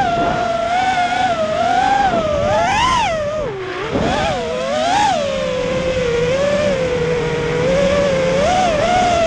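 The electric motors and propellers of an FPV quadcopter whine, heard from the onboard camera. The pitch rises and falls with the throttle. About three and a half seconds in it drops sharply and quietens for a moment as the throttle is cut, then climbs again.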